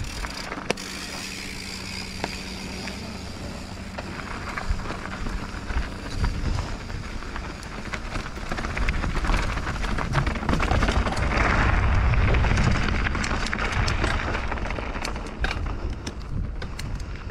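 Mountain bike riding down a dirt trail: a steady rush of tyre and air noise with scattered clicks and rattles, swelling to its loudest about two thirds of the way through.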